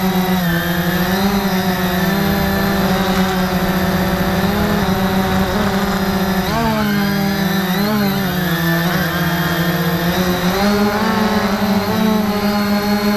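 Cheerson CX-20 quadcopter's four electric motors and propellers humming steadily and loudly, close up as heard from a camera mounted on the drone. The pitch dips and jumps several times around the middle as the motors change speed while it manoeuvres.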